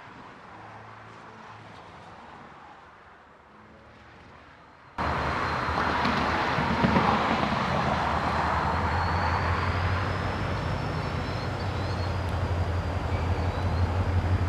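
Faint outdoor background, then an abrupt cut about five seconds in to the steady low rumble of a passing EMD SD40 locomotive's 16-cylinder diesel engine, with a faint, thin, wavering high whine above it.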